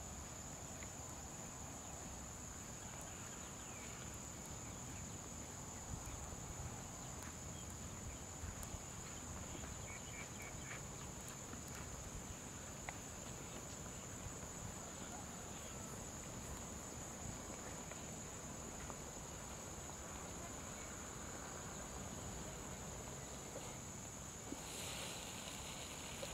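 Insects trilling in a steady, continuous high-pitched tone over a low rumble. About a second and a half before the end, a second, hissier insect buzz joins in.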